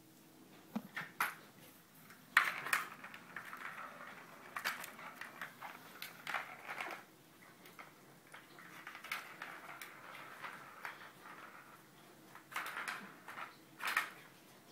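Plastic ball rolling and clattering around inside a circular plastic cat track toy as kittens bat at it, in irregular runs with a few sharp clacks.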